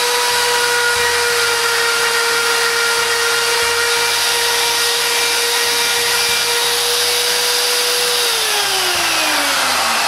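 Mastercraft plunge router running steadily at full speed with a high whine, threading the end of a wooden post turned through a threading jig. About eight seconds in it is switched off and its pitch falls steadily as the motor spins down.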